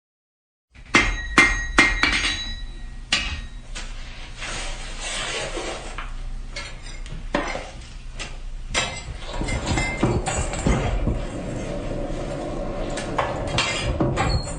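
Blacksmith's workshop: hammer blows ringing on metal, with three sharp clangs in quick succession about a second in, then scattered knocks. From about nine seconds a louder steady rumble with a hum joins the strikes.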